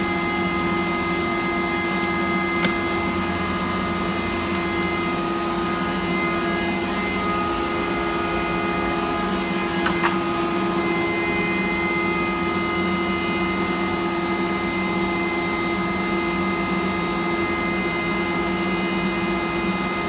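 Steady drone of shop machinery, a constant hum made of several held tones over a noisy rush, with two faint clicks, one about two and a half seconds in and one about ten seconds in.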